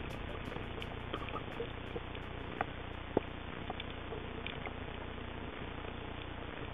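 Steady underwater noise as heard through an underwater camera, with a few scattered sharp clicks, the two loudest about halfway through.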